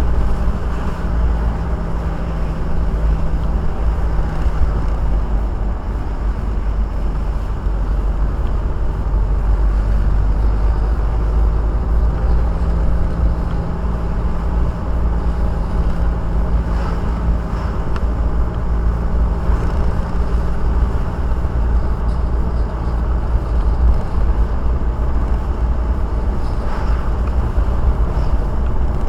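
Car on the move, heard from inside the cabin: a steady low rumble of road and engine noise with a faint engine hum.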